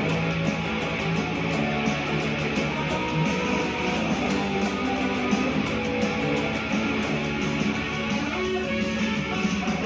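Electric guitar strumming power chords in a fast melodic punk tune, playing without a break.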